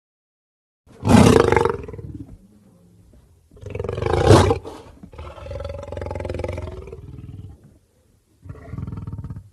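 Lion growling and snarling in four separate calls: a loud, sharp snarl about a second in, a second loud snarl about four seconds in that runs into a longer, steadier growl, and a short growl near the end.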